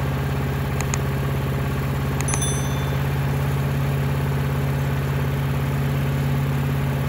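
Predator 212 single-cylinder four-stroke engine, mounted on a wood chipper, running at a steady even speed after its carburetor has been cleaned and fitted with a new main jet.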